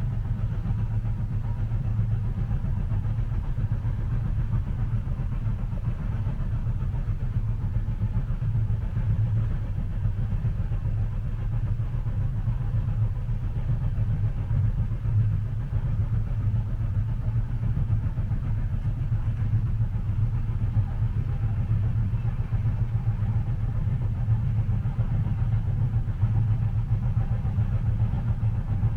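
Steady low rumble inside a moving train carriage, even and unbroken, without distinct wheel clacks.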